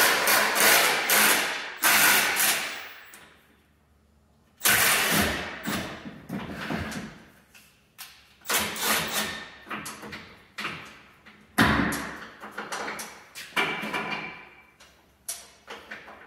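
Cordless impact wrench working suspension bolts in repeated loud bursts, each starting suddenly and dying away over a second or two, with gaps between.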